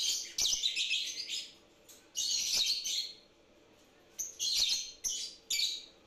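Lovebirds chirping in four bursts of rapid, high chirps with short quiet gaps between them.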